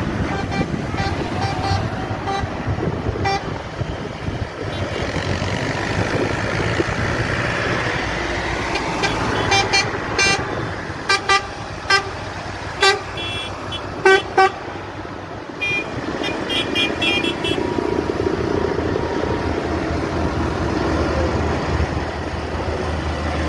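Light-decorated tractors and a lorry tractor unit driving past in a line, engines running steadily over the hiss of tyres on a wet road. From about ten to fifteen seconds in, vehicle horns give a string of short, loud blasts, followed by a quick run of high-pitched toots.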